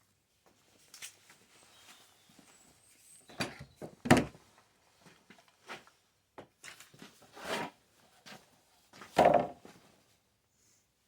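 Recoil starter cord of a Stihl 056 AV chainsaw pulled about four times, each pull a short rasping rattle, the two strongest about four and nine seconds in; the engine does not catch.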